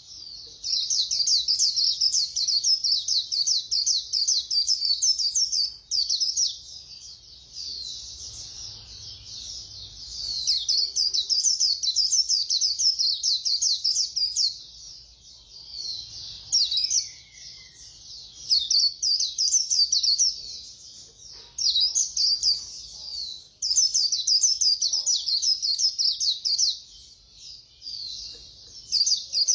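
A white-eye singing a fast, continuous twittering song of rapid high notes in long runs with brief pauses: the quick-delivery 'khuyên líu' style.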